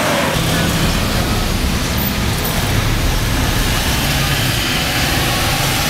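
Steady city street traffic noise, with car engines running.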